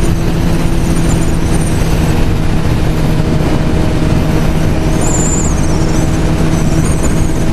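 Sport motorcycle engine running at a steady highway cruise of about 126 km/h, one unchanging engine note under a constant rush of wind and road noise.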